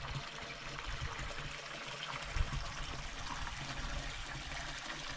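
Stream water running steadily, with one soft thump about two and a half seconds in.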